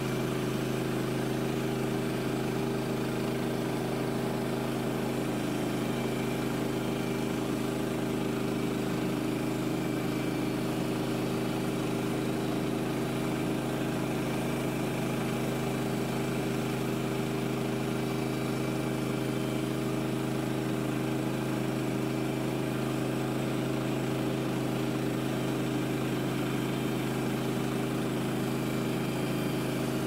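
Woodland Mills HM130MAX portable band sawmill running at a steady pitch, its gas engine driving the band blade as the saw head travels along a Douglas fir timber.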